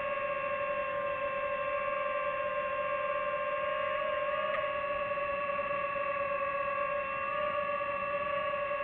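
DJI FPV drone's motors and propellers whining steadily as it hovers and descends, a hum of several fixed tones that wavers slightly about four seconds in.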